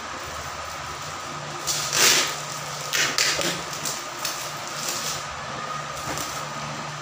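Plastic parcel wrapping rustling and crinkling in short bursts as it is handled and pulled open, loudest about two and three seconds in, over a steady low hum.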